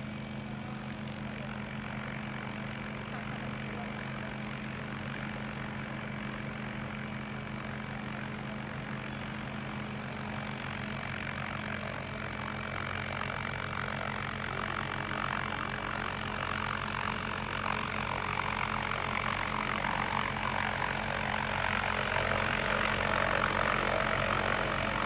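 Remote-controlled crop-spraying helicopter running with a steady low hum of motor and rotor, growing louder over the second half as it flies closer.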